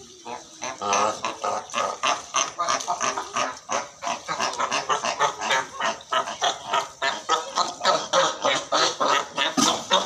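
Cape fur seals barking at each other in a rapid, unbroken run of short calls, several a second, which grows loud about a second in: the noise of seals squabbling and fighting on a haul-out platform.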